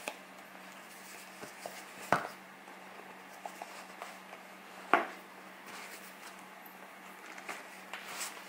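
Hands handling a soft pouch handbag on a cloth-covered table: quiet rustles and small taps, with two sharper knocks about two seconds and five seconds in, over a faint steady hum.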